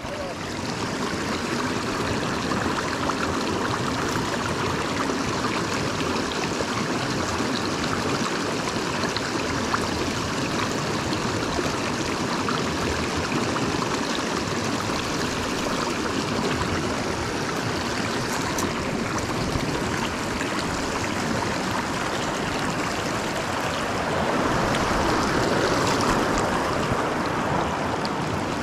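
River water running steadily, an even rushing sound, a little louder near the end.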